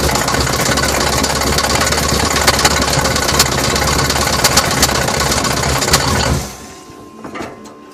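Chevy 454 big-block V8 running with an irregular sharp tapping noise, the unidentified weird sound from the newly installed engine; the engine sound cuts off about six seconds in.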